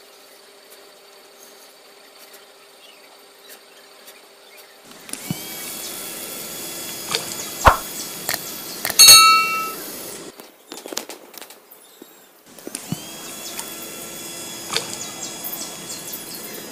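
Small DC hobby motors whirring as they spin the plastic propellers of a homemade bottle boat, starting about five seconds in. A couple of sharp clicks and a brief loud squeal come in the middle; the whir cuts out for about two seconds and then starts again.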